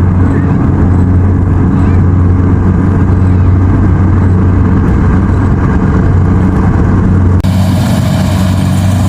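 Engine of a Kubota rice combine harvester running steadily with a deep, even hum. About seven seconds in, the sound shifts abruptly, with more hiss on top of the engine.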